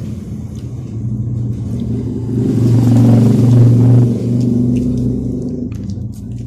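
A motor vehicle's engine with a low hum that grows louder to a peak about three seconds in, then fades away, as of a vehicle passing close by.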